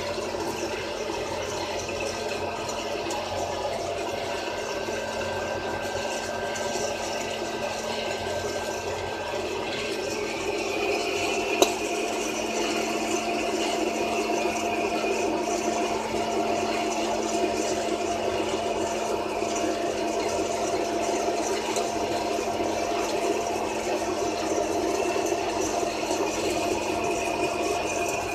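Rowe Silver Screen popcorn vending machine running through its popping and vending cycle: a steady motor hum with a rattling mechanism. It grows a little louder about ten seconds in, with one sharp click soon after.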